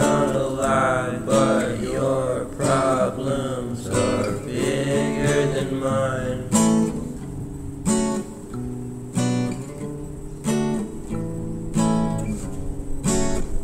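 Background song on strummed acoustic guitar, with a melody line over it in the first half. From about halfway the guitar goes on alone, a chord struck about every second and a half.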